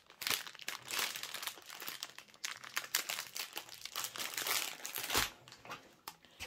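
Clear plastic wrapping around a bundle of diamond-painting drill bags crinkling as it is handled, ending with a soft bump about five seconds in.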